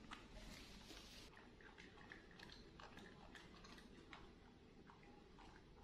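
Near silence: faint rustling about the first second, then scattered small clicks and ticks in a quiet room.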